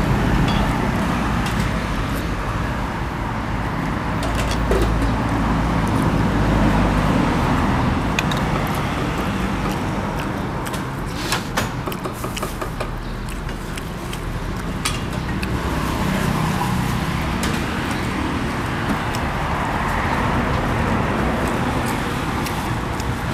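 Road traffic passing: a steady rumble that swells and fades several times, with a few sharp clicks around the middle.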